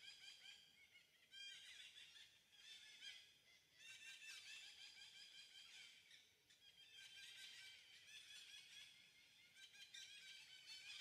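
Faint, busy chorus of many short, high-pitched chirping calls overlapping one another, thinning briefly twice.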